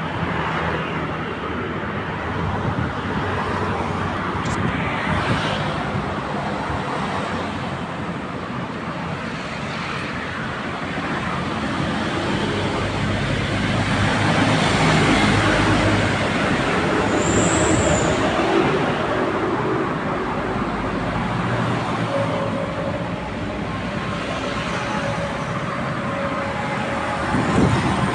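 Steady road traffic from passing vehicles, swelling louder about halfway through as vehicles pass close by.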